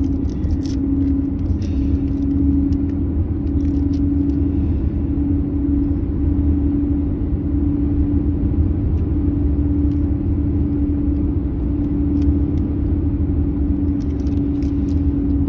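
Steady car-cabin noise: a constant low rumble with an even hum running underneath.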